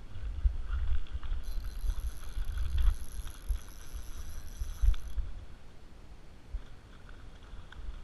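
Uneven wind rumble and handling bumps on the camera's microphone, with a few faint clicks and a thin high steady whine from about a second and a half in until about five seconds in.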